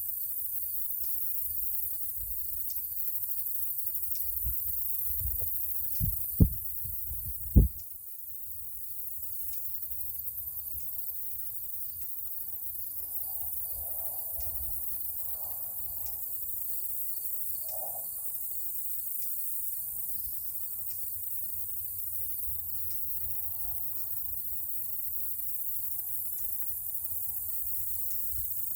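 Insects chirping in a steady, even pulse over a constant high hiss, broken by two sharp knocks about six and seven and a half seconds in.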